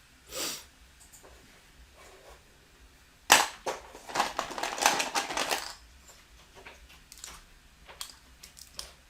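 Loose plastic building bricks clattering as they are sifted and tossed while sorting a bin: a sharp click a little past three seconds opens a dense rattle of many small knocks lasting about two seconds, then a few scattered single clicks.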